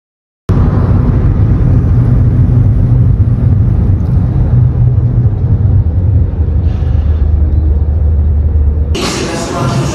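Steady low rumble of a car on the move, heard from inside the cabin, starting about half a second in. Near the end it gives way to music.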